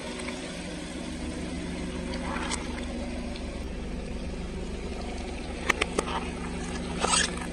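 Car engine idling steadily. Near the end a few sharp cracks and a short crunch come as the tyre rolls onto a food package and crushes it.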